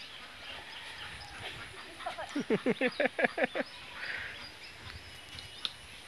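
A farm animal calling about two seconds in: a quick run of about eight short notes, each falling in pitch, over faint outdoor background.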